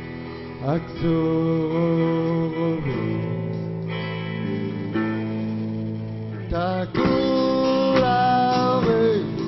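A man singing long held notes into a microphone over a guitar, his voice sliding up into each new note, about a second in and again near the end.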